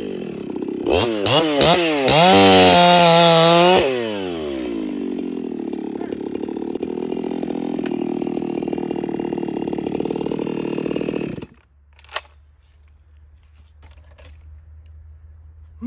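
Chainsaw engine revved up and down several times and held at high revs until about four seconds in, then dropping to a steady idle. It shuts off about eleven and a half seconds in, followed by a single click.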